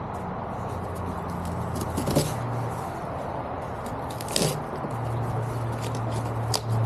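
Steady noise of nearby freeway traffic, with a few sharp clicks and rustles of packaging being handled, and two short falling whines about two and four seconds in.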